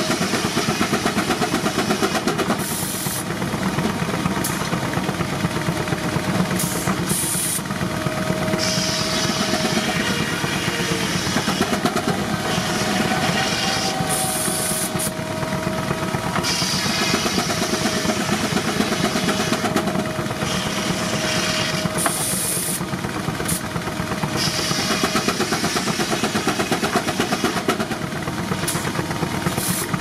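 Case steam traction engine working under load, belt-driving a circular sawmill: a fast, steady beat of exhaust chuffs over the running mill machinery, with bursts of hissing that come and go.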